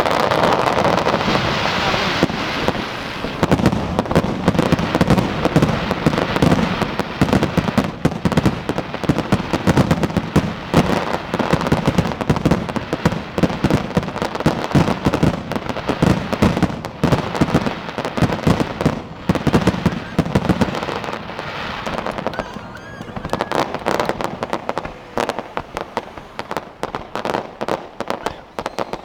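Fireworks display: a dense, rapid run of crackling pops and bangs from many bursting shells, easing briefly about three-quarters of the way through before picking up again.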